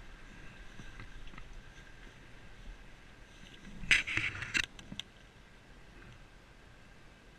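Brief rustling and scraping right at the microphone about four seconds in, as the rider handles something in his hands, over a faint steady background hum.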